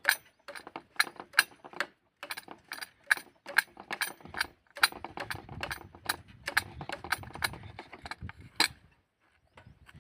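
Sharp metallic clicks and taps, about two or three a second, from metal being worked by hand. A low hum runs under them through the middle, and the clicking stops shortly before the end.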